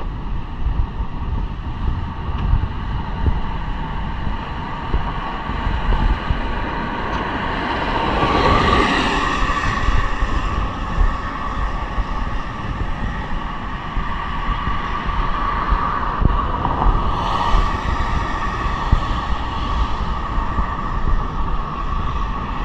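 Wind buffeting the microphone, a loud low rumble throughout, over a steady hiss, with two louder rushing swells about eight and seventeen seconds in.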